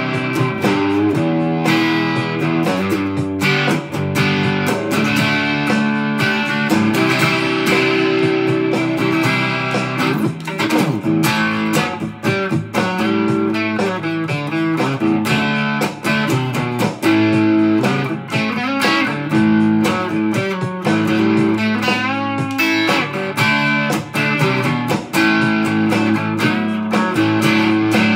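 Electric guitar played rock style on a gold-top single-cutaway guitar, a run of quickly changing notes with bent, wavering notes in the middle.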